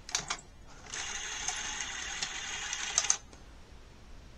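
NEC SuperBeta Hi-Fi VCR's tape-loading motor and gear train whirring as the threading mechanism cycles, with a few clicks, then cutting off abruptly about three seconds in. The mechanism stops short because its switch is not pressed in far enough to complete the loading cycle.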